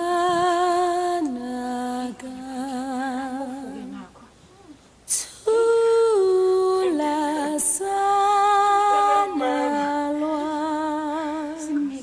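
A woman's unaccompanied voice holding long, wavering notes that step up and down in pitch, with a short break about four seconds in and a sharp click just after it.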